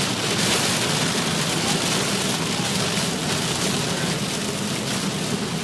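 Heavy rain pelting a moving car, a steady hiss over a low hum of engine and road noise, heard from inside the car.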